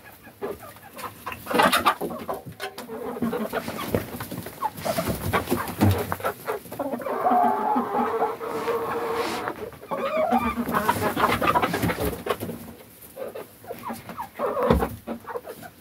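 A flock of chickens, hens and a rooster, clucking and squawking in agitation, with a louder run of calls in the middle, and scattered clicks and rustles.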